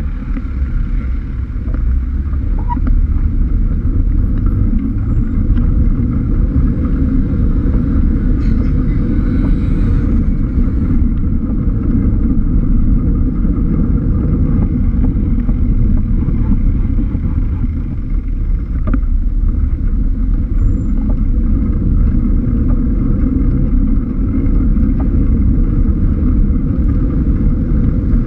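Steady low rumble of wind buffeting a bike-mounted GoPro's microphone while cycling through city traffic, with the engines of vans and cars running close alongside.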